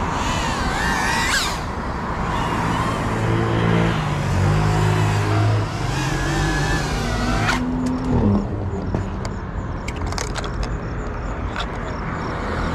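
Cinewhoop drone's brushless motors and ducted propellers whining, the pitch rising and falling with the throttle, then cutting off suddenly about seven and a half seconds in. A steady low rumble of road traffic runs underneath, with a few sharp clicks near the end.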